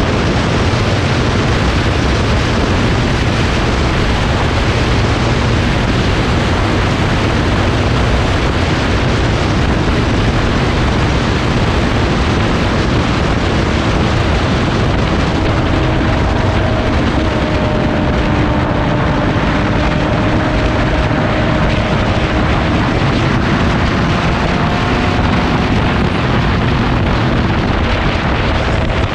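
Wind rushing over the microphone of a riding motorcycle at road speed, with the bike's engine note running faintly underneath and drifting a little in pitch in the second half.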